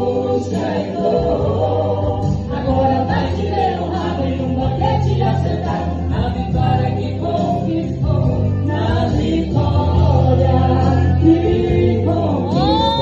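Gospel music: a choir singing held, gliding melody lines over a steady low accompaniment.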